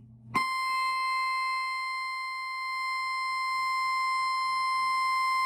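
Moog Subharmonicon semi-modular analog synthesizer droning one steady high note at its first power-up. The note starts suddenly about a third of a second in and holds without change.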